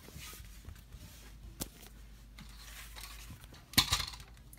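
Handling noise from a phone camera being moved by hand: a low rumble, one sharp click about a second and a half in, and a louder short burst of knocks and rustling near the end.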